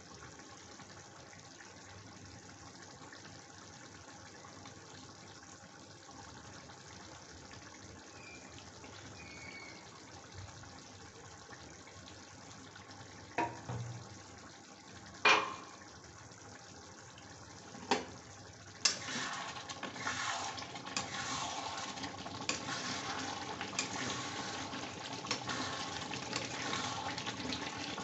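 Chicken curry gravy simmering in a kadhai: a low, steady bubbling hiss, broken by three sharp knocks about halfway through. From about two-thirds in, louder, irregular crackling bubbling takes over.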